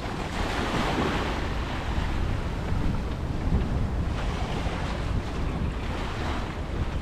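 Wind buffeting the microphone with a steady low rumble, and sea water rushing and splashing past a sailboat's hull under sail, swelling about a second in and again around four to six seconds in.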